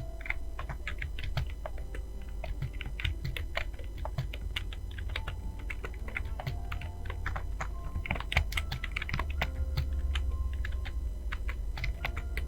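Computer keyboard being typed on rapidly and continuously during a typing test, a dense, irregular run of key clicks over a steady low hum.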